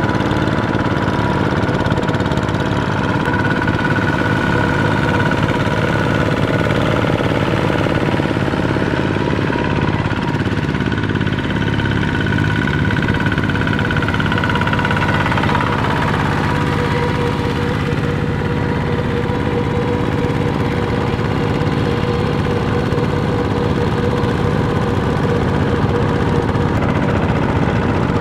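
Single-cylinder Kubota ZT diesel engine of a two-wheel walking tractor chugging steadily under load as its cage wheels puddle a flooded rice paddy. Its note shifts about halfway through.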